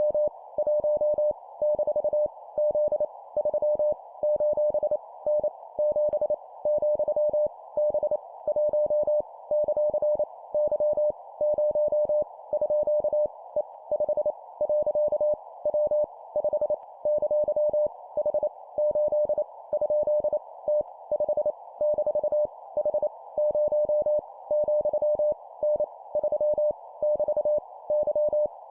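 Morse code (CW) sent as a single steady tone of about 600 Hz, keyed on and off in quick dots and dashes at 25 words per minute. It spells random letters, numbers and punctuation, over a steady narrow band of hiss around the tone.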